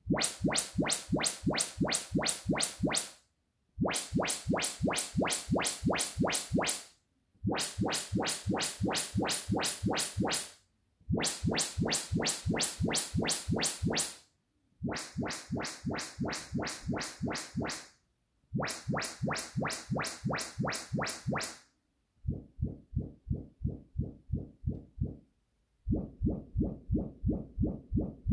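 Yamaha YPAO room-calibration test signal played through a home-theater system's speakers one at a time: eight groups of rapid pulses, about four a second, each group lasting about three seconds with short gaps between. The last two groups are deep, bass-only pulses from the two subwoofers.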